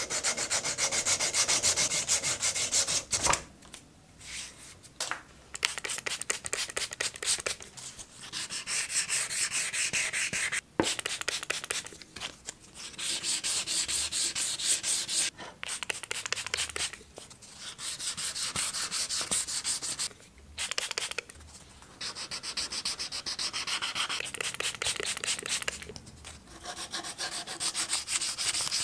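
Sandpaper rubbed quickly back and forth over a cleaver's epoxy resin handle, in runs of fast scratchy strokes broken by several short pauses.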